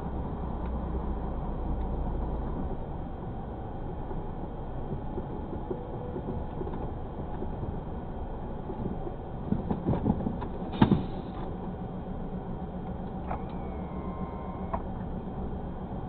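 Tractor-trailer's diesel engine running at low speed, heard inside the cab. A few knocks and one sharp click come just before eleven seconds in, and a short thin tone sounds about thirteen seconds in.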